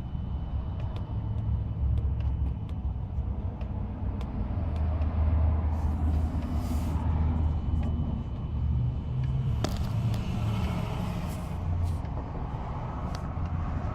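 Cadillac STS-V's supercharged V8 running with a steady low rumble, with faint irregular clicks that the owner traces to the transmission oil pan. Two short bursts of hiss come through about a third of the way in and again after the middle.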